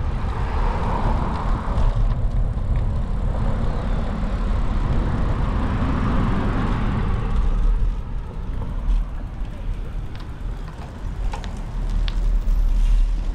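Wind rumbling on the microphone of a moving bicycle, with road traffic swelling up and fading twice.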